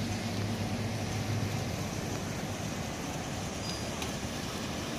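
Steady street traffic noise from cars and buses, with a low engine hum that fades out in the first second and a half or so.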